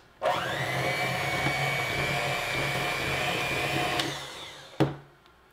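Electric hand mixer with twin beaters mixing cocoa powder into creamed butter batter in a glass bowl: the motor whine rises as it starts, runs steadily for about four seconds, then winds down and stops.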